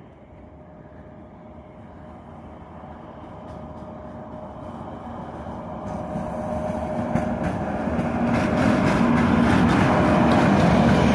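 3ES5K 'Ermak' three-section electric locomotive hauling a freight train out of the station under power, approaching: a steady hum over the rumble of wheels on rail, growing steadily louder as it draws near.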